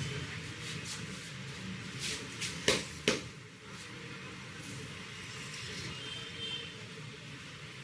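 Sharp snaps from the hands working during a head massage: a couple of light clicks, then two loud snaps about half a second apart, over a steady low background rumble.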